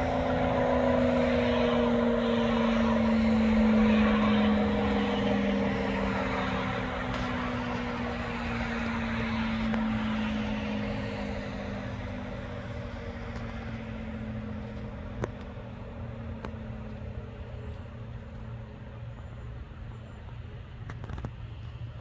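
ACA Allertor 125 tornado siren with an 8/12-port chopper winding down. Its two-note wail slides slowly lower in pitch and fades away.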